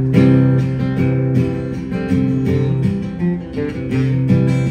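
Guitar played live, a fingerpicked introduction with a held bass note under repeated plucked chords.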